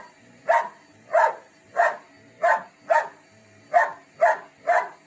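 A Dutch Shepherd barking repeatedly at a new vacuum cleaner she dislikes, about eight sharp barks at a steady pace of roughly one every half second or so.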